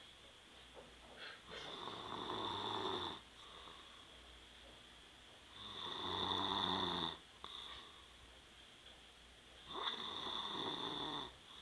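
A man snoring in his sleep: three long, raspy, pitched snores about four seconds apart, with quiet breathing between them.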